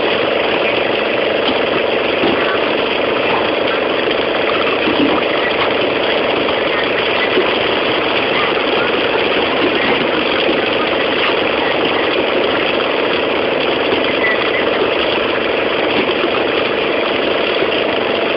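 A fishing boat's engine running steadily, with a constant rushing hiss of water.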